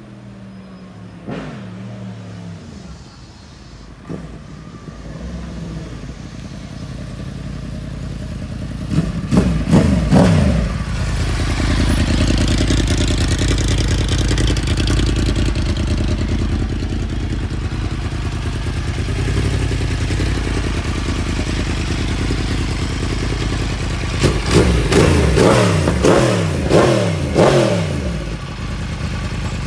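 Yamaha R1 crossplane inline-four with an Akrapovic full exhaust system, faint at first, then blipped twice sharply about nine seconds in. It runs steadily and loudly after that, then gets a run of about five quick throttle blips near the end.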